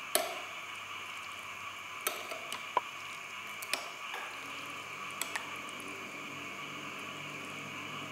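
A metal spoon clinking against a glass bowl of noodle soup about six times at irregular intervals, one clink ringing briefly, with small liquid sounds of stirring and scooping over a steady background hiss.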